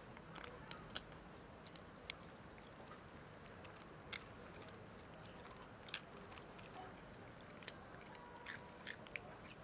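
Cats eating dry kibble from plastic tubs: faint, irregular crunches and clicks of chewing, the sharpest about two seconds in.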